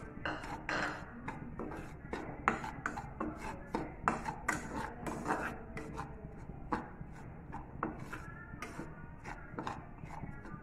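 A spoon scraping and stirring dry semolina in a nonstick kadai, in irregular gritty strokes about one or two a second, as the semolina is dry-roasted.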